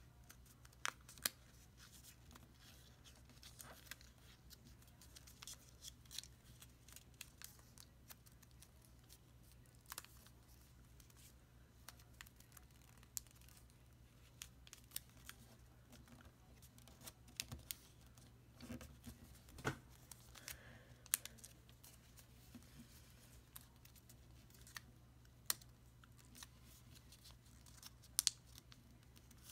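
Origami paper being folded and creased by hand on a table: faint scattered crinkles and many sharp little ticks, a few of them much louder than the rest, over a low steady hum.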